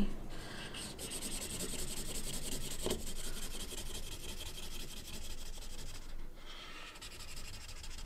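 Felt-tip marker scrubbing back and forth on paper as an area is coloured in: a steady scratchy rubbing, with a brief pause about six seconds in.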